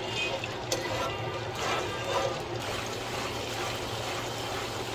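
Garlic and ginger paste sizzling in hot oil in a nonstick pan, stirred with a spoon that scrapes and taps the pan now and then.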